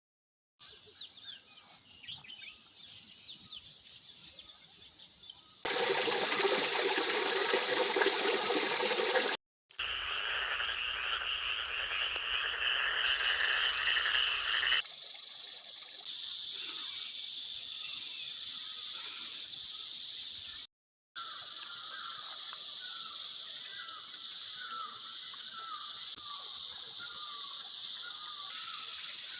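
Several short outdoor recordings spliced together with brief silent gaps. One stretch is loud, even rushing noise; the others hold chirping and pulsing animal calls. In the last part the calls repeat several times a second.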